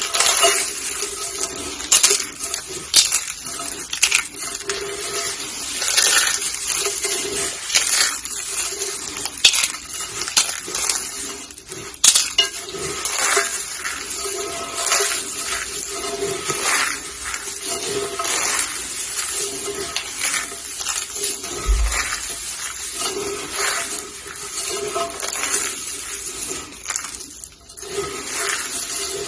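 Dry soap roses and soap curls being crushed: continuous dense crunching and crackling, with many sharp cracks scattered through it.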